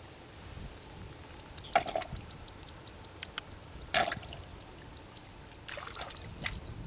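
A hand digging into a burrow in wet mud, with wet squelching and splashing of muddy water. A quick run of small sharp clicks comes in about a second and a half in, with two louder wet splats, the second about four seconds in.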